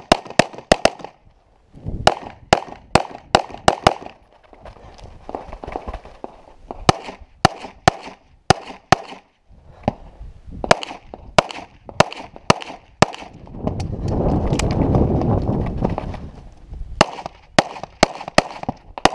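A 9mm Open-division compensated race pistol firing rapid strings of shots during a timed stage run, in quick pairs and runs of up to eight shots with short breaks between positions. A couple of seconds of steady noise fills one longer break near the end.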